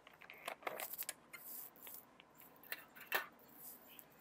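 A person chewing food, with scattered small mouth clicks and short soft crackles.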